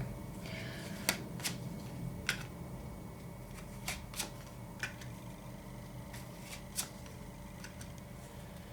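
Tarot cards being handled: a scattering of light, sharp card clicks and snaps, about eight in all, spread unevenly over a faint steady hum.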